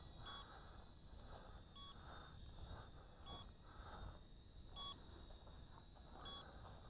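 Faint short electronic beep from the toy hexacopter's handheld transmitter, repeating evenly about every second and a half, five times, over light wind noise.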